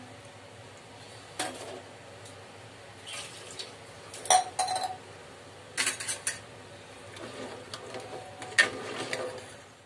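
Steel kitchen utensils clinking and scraping against an aluminium cooking pot: a steel plate knocked on the pot as ground masala is scraped in, then a steel ladle stirring the curry. The clinks come in a few separate clusters, the sharpest about four seconds in and near the end.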